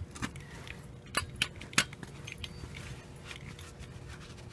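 Metal hand tools clinking and clicking as they are handled, with a few sharp clicks about a second or two in.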